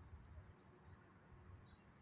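Near silence: faint outdoor background with a low rumble and a couple of faint high chirps near the end.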